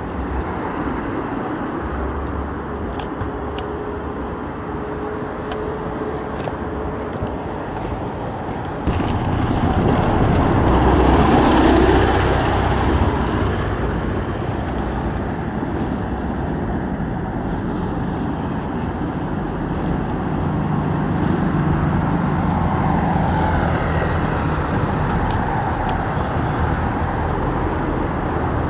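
City road traffic: a steady wash of passing cars, with one vehicle going by close and loudest about ten to twelve seconds in.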